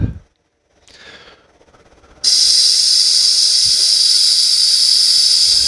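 Air hissing steadily out of a 150cc scooter's rear tire, starting about two seconds in: the tire is being let down to give clearance for pulling the rear wheel out past the case.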